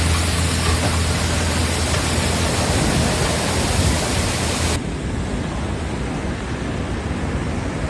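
Compact tractor's engine running close by under a steady rushing noise. About five seconds in the sound cuts to a duller, steady rushing without the engine hum.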